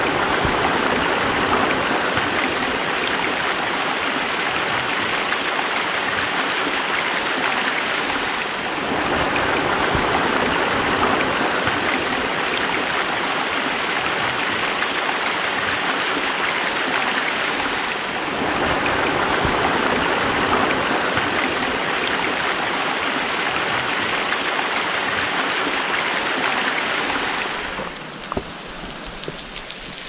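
Small waterfall cascading over mossy rock into a shallow stream: a steady rush and splash of running water. It grows quieter near the end.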